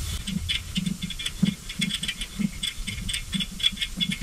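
A hand tap being turned in a cam-bearing pin hole in an LS engine block, giving a string of irregular light ticks and clicks, about three or four a second.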